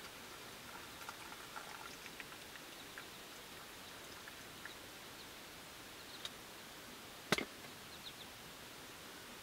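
Small metal camp cookware clinking, with one sharp clink about seven seconds in as a metal pot is set down on a wooden board. Under it runs a steady light patter of rain on the tent.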